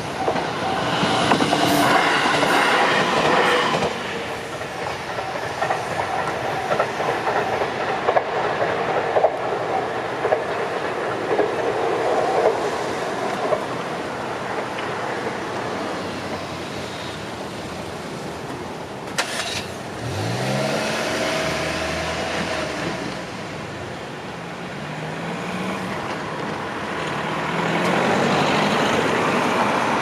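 A train passes over a level crossing for roughly the first dozen seconds, wheels clacking over the rail joints, with the crossing's warning bell still ringing as it begins. Cars then drive over the crossing, one speeding up about twenty seconds in and more near the end.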